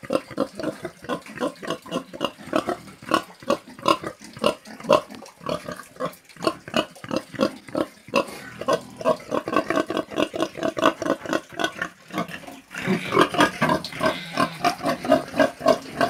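Pigs grunting in a quick run of short, repeated grunts, several a second. The grunting becomes louder and busier about 13 seconds in.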